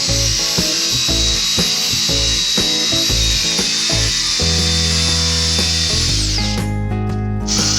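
A power tool's electric motor runs with a steady high whine and hiss, winds down about six seconds in, and starts up again just before the end. Background music plays underneath.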